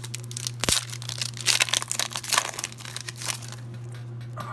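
Foil Pokémon booster pack wrapper being torn open and crinkled by hand, a dense run of crackles and rustles that thins out after about three and a half seconds. A steady low hum sits underneath.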